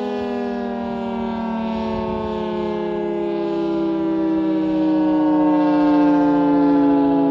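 Federal Signal 3T22 rotating outdoor warning siren sounding its attack signal: a loud multi-note howl sliding slowly down in pitch, swelling in loudness about five seconds in.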